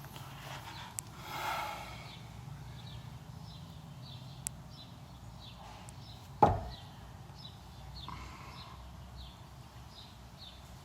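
Quiet outdoor background with faint high chirps repeating about twice a second, a brief rustle about one and a half seconds in, and a single sharp thump a little past the middle.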